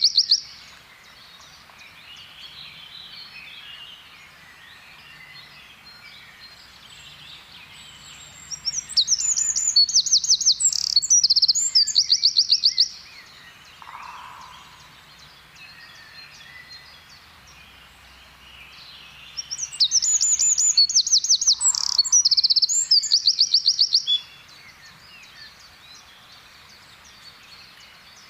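Eurasian wren singing: two loud, high-pitched songs of about four seconds each, about ten seconds apart, made of rapid trills and repeated notes, with faint chirping from other birds in between.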